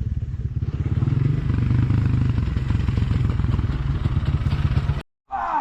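Enduro dirt bike engine running at low revs, a steady rapid pulsing of firing strokes. It cuts off abruptly near the end.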